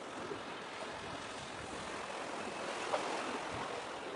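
Steady wash of small sea waves lapping against the concrete tetrapods of a breakwater, with a slightly louder splash about three seconds in.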